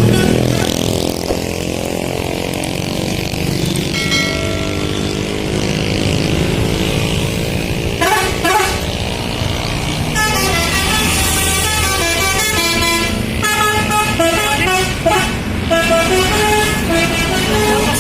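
Bus 'telolet' multi-tone horn playing a run of notes that step up and down in pitch, after a couple of short blasts. Under it the bus engine runs, rising in pitch over the first few seconds.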